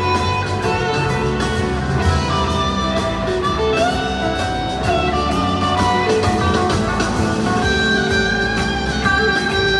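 Live rock band playing: an electric guitar lead with long held notes that slide between pitches, over bass guitar and drums.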